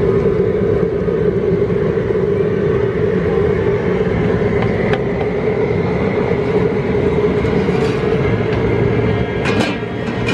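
Propane burner running steadily under the shrimp boil pot, a loud constant roar. There is a faint tick about halfway and a short metallic clatter near the end.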